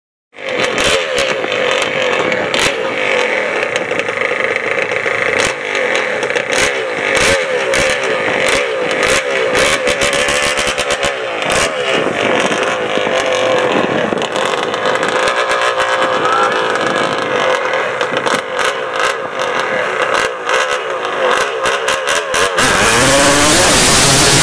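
Yamaha Banshee quad's two-stroke twin and a Corvette's V8 idling and being blipped on the drag-strip start line, with sharp crackles. About two seconds before the end, both launch at full throttle and the sound jumps to a loud, steady roar as the tyres spin and smoke.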